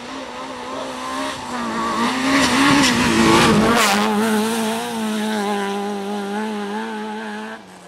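Rally car on a gravel stage approaching at full throttle, its engine note rising. About halfway through it passes close by with a loud rush of tyre and gravel noise. Its engine note then drops to a lower, steady pitch as it pulls away, cutting off suddenly near the end.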